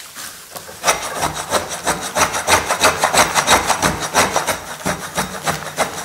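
Fast, even scraping strokes, several a second, over a tanned skin, starting about a second in: the hide is being scraped and stretched to soften it and work the fat off.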